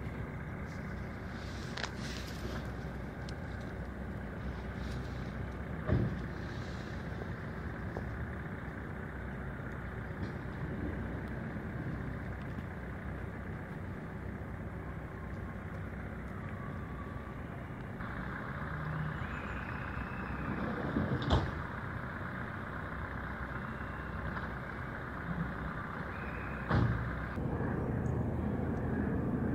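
Steady low outdoor background rumble that swells slightly about two-thirds of the way through, with three brief knocks.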